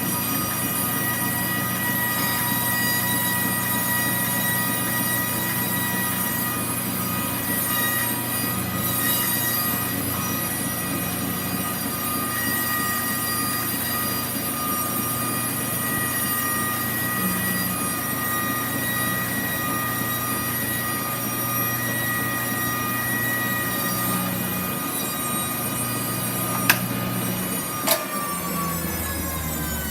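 A steady, shrill metallic squeal with several held high tones over a rough rumbling noise, and two sharp clicks near the end.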